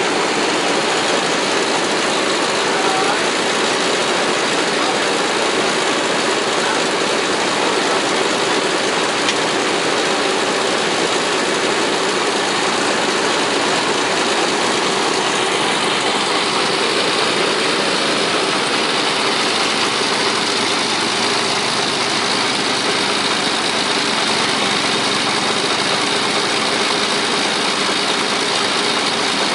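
Vintage Caterpillar D13000 six-cylinder diesel engine running steadily while driving a sawmill.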